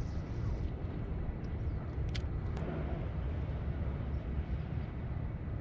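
Steady low outdoor rumble over open water, with two faint clicks a moment apart about two seconds in.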